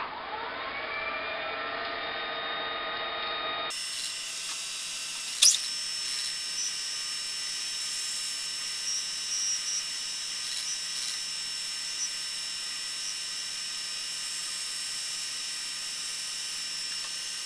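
Wood lathe spinning up and then running steadily at high speed, a steady whine, while the small deer antler spin top on it is sanded. A brief sharp knock about five seconds in.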